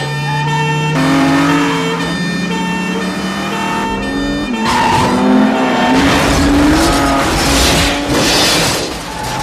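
Car chase sound effects: a two-tone police siren and engines revving, then from about four and a half seconds in a loud crash with tires screeching and long metal scraping as a police car flips and slides on its roof.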